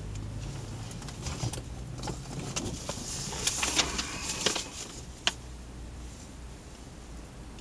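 Small handling noises inside a car, light rustles and clicks, over a low steady hum that drops away about five seconds in, with one sharp click just after.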